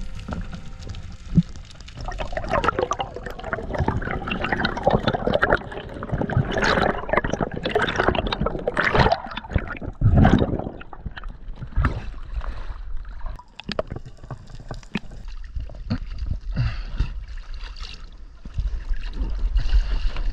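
Water gurgling and sloshing around an underwater camera as a diver swims. The rushing is loudest through the first half and thins out later.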